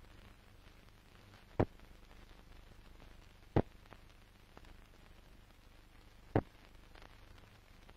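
Old optical film soundtrack noise: a steady low hiss and hum broken by sharp pops, four of them a couple of seconds apart.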